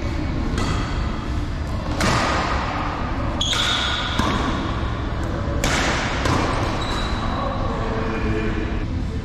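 Badminton rally in a reverberant sports hall: rackets striking the shuttlecock several times with sharp, echoing smacks, and sneakers squeaking briefly on the court floor, over a steady hall hum.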